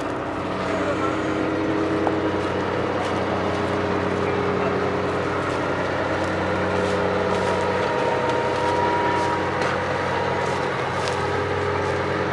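Truck-mounted borewell drilling rig's engine running steadily, with a few faint knocks over it.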